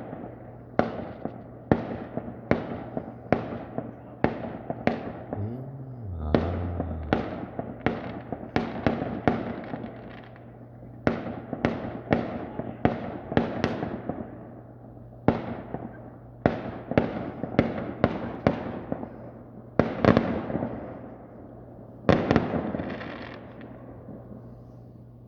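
Fireworks going off: a long series of sharp bangs, often several a second, each trailing off in a fading echo. A denser, longer burst comes near the end.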